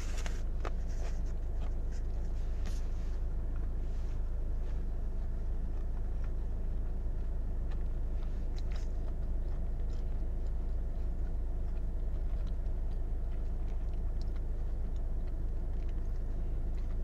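Close-up chewing of a fried chicken sandwich, soft wet clicks picked up by a lapel microphone, over a steady low hum of the car.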